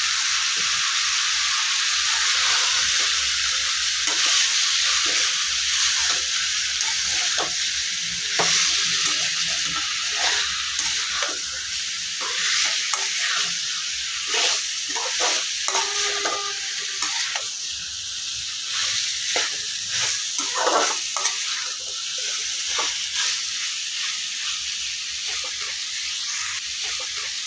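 Chicken pieces sizzling in a pan with onion, tomato and ginger-garlic masala while being stirred, with the utensil repeatedly scraping and knocking against the pan.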